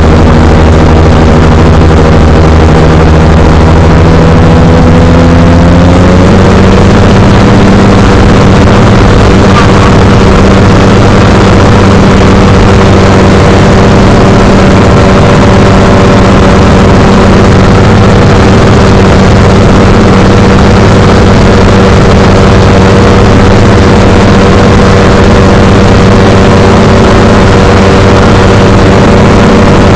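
X-Air microlight's engine and propeller running steadily. The engine note rises slightly about six seconds in, then holds.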